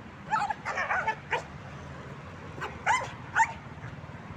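Young dog on a leash barking at an approaching decoy: a quick run of barks in the first second and a half, then two more about three seconds in.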